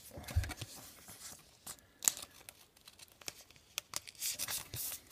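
Trading cards being handled and a foil card-pack wrapper crinkling: scattered light clicks and rustles, a sharp snap about two seconds in, and a longer crinkle near the end.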